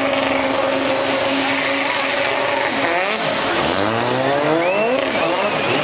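Formula 2 racing car's engine doing donuts, held at high revs for a few seconds over the hiss of spinning tyres, then dropping and climbing again in several rising revs in the second half, with tyre squeal.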